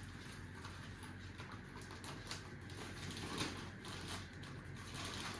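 Faint rustling and light scattered clicks of a packet being handled.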